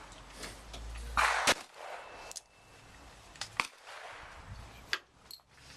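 Gunshots on a shooting range: one loud shot about a second and a half in, followed by several fainter, sharp cracks.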